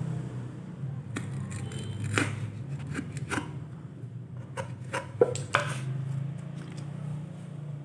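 A small screwdriver tip scraping and clicking against a small wooden box, with a series of light knocks as the box is turned and put down on a tile floor. A steady low hum runs underneath.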